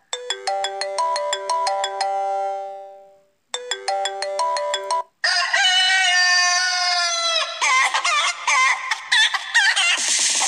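Phone ringtones played back one after another: a short chime melody of bell-like notes that rings out and fades, then the same melody again, then about halfway through a rooster-crow ringtone: one long crow followed by rapid hen clucking.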